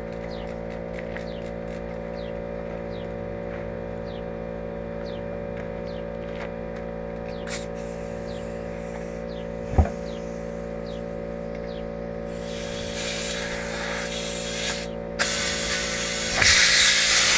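Compressed air hissing into a big truck tire on a manual tire changer, first moderately and then louder near the end, as an attempt to seat the bead with air fails. Underneath runs a steady hum with light regular clicks in the first half, and one sharp knock comes about ten seconds in.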